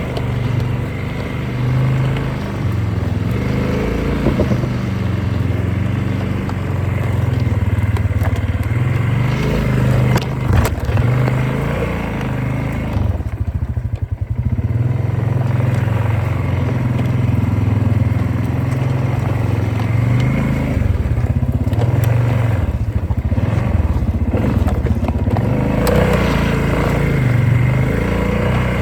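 Polaris off-road vehicle's engine running on a trail ride, its note rising and falling with the throttle and easing off briefly about halfway through.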